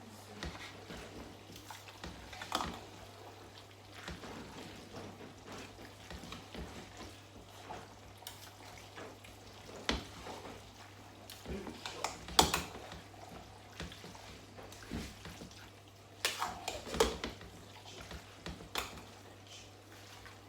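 Stirring spaghetti in a cooking pot, with scattered knocks and scrapes of the utensil against the pot over a low steady hum.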